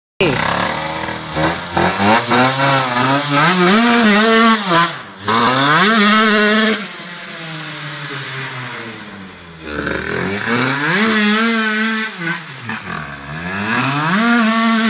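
Derbi Senda dirt bike's engine revving up and down repeatedly as it pulls away and rides across the field. The sound is quieter and steadier for a few seconds in the middle as the bike gets farther off, then revs up again near the end.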